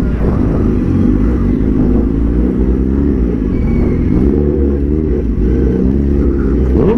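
Superbike engines running at low speed in traffic, the throttle blipped so that the engine note rises and falls in several swells over a steady low rumble.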